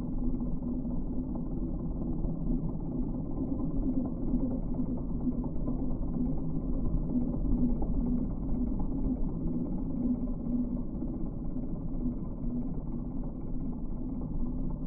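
Bobcat E10 mini excavator's diesel engine running steadily, powering a hydraulic stump grinder attachment. It sounds dull, with no high sounds.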